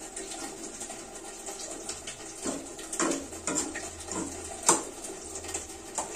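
Sambal sizzling in a wok while a metal spatula scrapes and knocks against the pan, several separate strokes over a steady hiss, the sharpest one a little before five seconds in.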